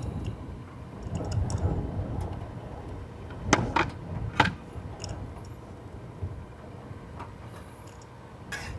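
Low, steady rumble of strong wind around a parked car, heard from inside. A few sharp clicks come in the middle, the loudest a pair and then a single one a moment later.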